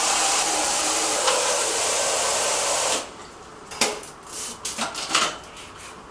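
Water spraying from a shower hand-spray into a 20-litre plastic bucket as it fills, shut off abruptly about three seconds in. A few sharp knocks and clatters follow as the shower head and tap are handled.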